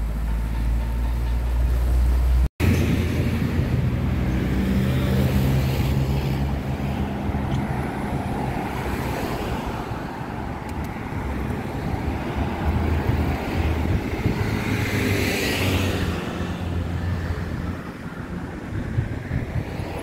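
Town street ambience: road traffic running steadily with wind rumbling on the microphone, and a vehicle passing close by about fifteen seconds in.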